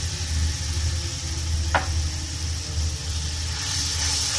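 Steady low hum from an induction cooktop under a wok of noodles simmering in a little water, with a soft hiss. There is a short chirp about two seconds in, and near the end the sizzle grows as a spoon stirs the noodles in the pan.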